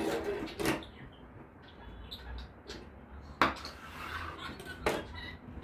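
Kitchen knife cutting through a blanched cabbage leaf and knocking on a wooden cutting board: three sharp knocks, the loudest about three and a half seconds in.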